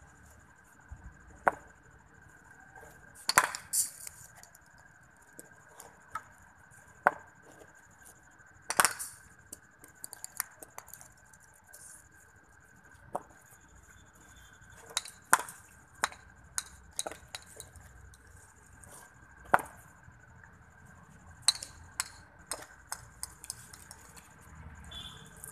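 A cricket bat striking a ball again and again: sharp wooden knocks at irregular intervals, a few much louder than the rest.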